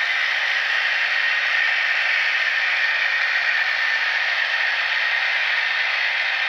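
Recreated KiHa 82 diesel railcar engine sound played by ESU LokSound V3.5 DCC decoders through the small speakers of a KATO HO-scale model train as it runs. A steady, thin running drone with no bass.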